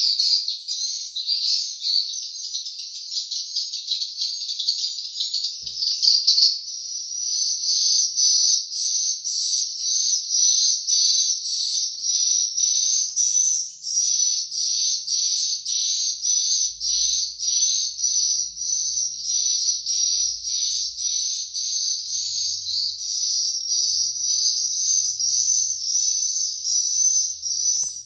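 Edible-nest swiftlets twittering inside a swiftlet house: a dense, high-pitched chirring that settles after a few seconds into a regular pulse about twice a second.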